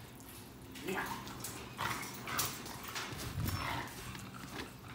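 An American bully being handled and set down on a grooming table: scattered scuffs and knocks of its paws and body, with some dog noises, and a dull thump about three and a half seconds in.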